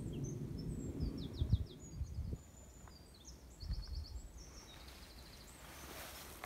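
Small songbirds singing: quick high chirps and several short, rapid trills of repeated notes, fading out about five and a half seconds in. Low rumbling thumps on the microphone in the first two and a half seconds.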